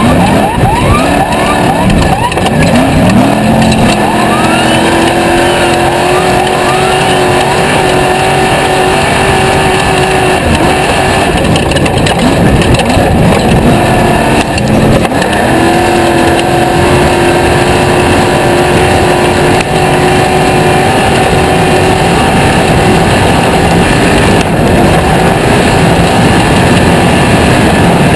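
Off-road race vehicle's engine accelerating, its pitch climbing in several rising sweeps, then running at a steady high pitch. About ten seconds in it falls away and climbs again in sweeps, then holds steady once more. A constant rushing noise runs underneath.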